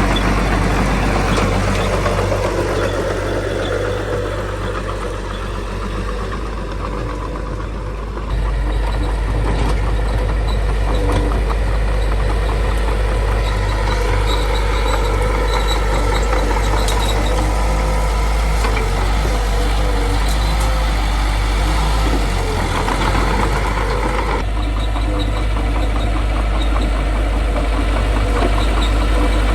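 Small bulldozer's diesel engine running steadily under work, with a deep low drone. The sound gets suddenly louder about eight seconds in.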